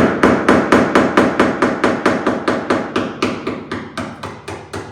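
Rapid, evenly spaced hammer blows, about six a second, growing gradually quieter, as a tool is driven behind the glued edge of a fiberglass quarter panel to break it free of its bonding strip.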